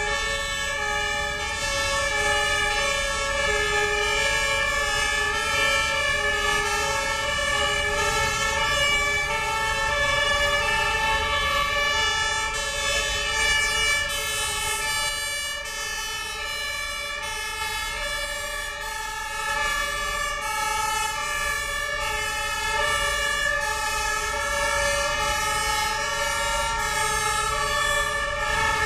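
Several fire engines' sirens sounding at once, their tones overlapping into one continuous, unbroken wail, with the low rumble of the trucks' engines beneath. It dips slightly about halfway through.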